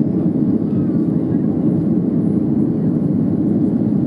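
Steady cabin noise of a Boeing 737-400 in flight shortly after takeoff: its CFM56 jet engines and the rush of air over the fuselage, heard from a seat over the wing as a deep, even noise.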